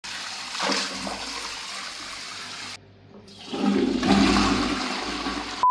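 Dreame H12 wet-dry vacuum running with water rushing and gurgling through it, in two stretches with a short break about halfway.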